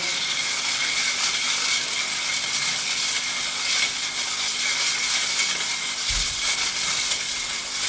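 Steady hissing noise with a faint, steady high tone running through it.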